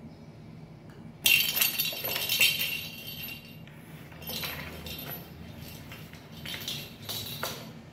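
Kitten scrambling and scratching on a corrugated-cardboard scratcher bed, claws scraping and rustling the cardboard, with a light jingling from the small toy ball it bats. It starts about a second in, is loudest for the first couple of seconds, then comes in shorter bursts.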